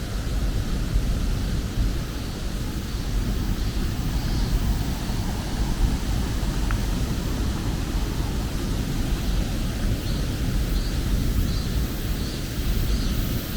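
Steady, low rushing noise.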